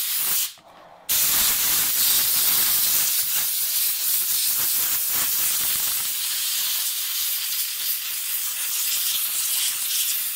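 Air compressor blow gun hissing steadily as compressed air is blasted between the keys of a keyboard to drive out dust and water. The hiss breaks off briefly about half a second in, then runs on unbroken.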